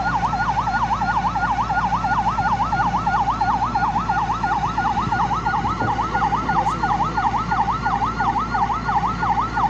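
Emergency vehicle's electronic siren in a fast yelp, its pitch sweeping up and down about four times a second without a break, over a steady low hum.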